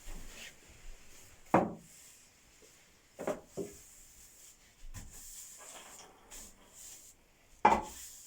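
A broom knocking and scraping on a hard floor during sweeping: a few wooden knocks and short scrapes, two of them sharp and loud, about six seconds apart.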